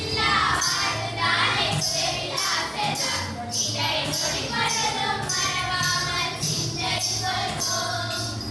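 Children singing a Villupattu (Tamil bow song) in chorus, with the jingling bells on the long villu bow struck in a steady beat, about two strokes a second.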